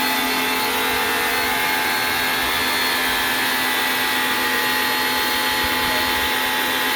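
Tolsen 1400 W electric pressure washer running steadily, its brush motor and pump giving an even hum over the hiss of the water jet from the spray gun.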